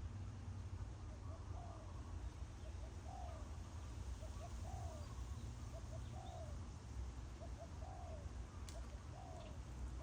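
Spotted dove cooing over and over: each phrase is a couple of short coos and then a longer coo that rises and falls, repeating about every one and a half seconds, over a steady low rumble.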